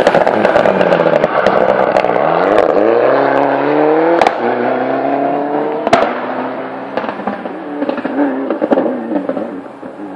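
Ford Fiesta rally car accelerating hard past and away, its engine note rising as it pulls through the gears, with a few sharp exhaust pops, then fading as it moves off.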